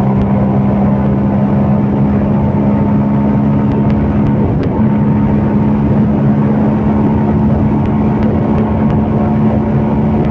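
CFMOTO Papio 125 mini-bike's single-cylinder engine running steadily under way, with a brief break in the engine note about halfway through before it settles back to a steady pitch.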